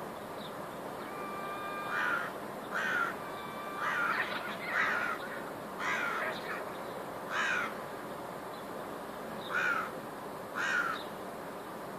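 A crow cawing about eight times at uneven intervals of a second or two, each caw short and dipping slightly in pitch.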